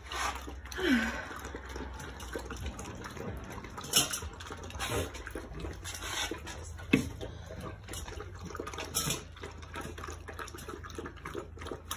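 Siberian Husky puppies lapping water together from stainless steel bowls, a busy wet patter with the metal bowls knocking sharply now and then. One short falling whine about a second in.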